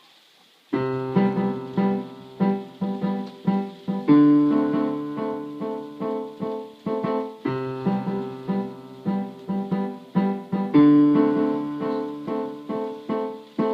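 Keyboard tune in an electric-piano sound, playing chords struck in a steady rhythm of roughly two to three a second, each one fading. It starts about a second in.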